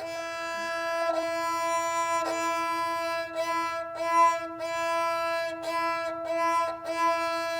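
Kamancheh bowed on a single open string, holding one steady note through repeated back-and-forth bow strokes, with a brief break at each change of bow direction. The player is pushing and pulling the bow to get a clean ringing tone with no sound from the neighbouring strings.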